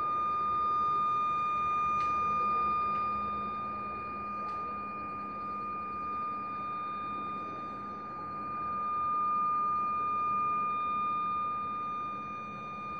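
A steady high-pitched electronic tone, with three faint sharp clicks about two, three and four and a half seconds in.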